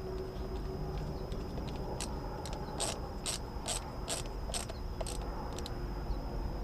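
Light mechanical clicks and snaps of small parts being handled and fitted together by hand, a few scattered at first, then a run of about two a second in the middle.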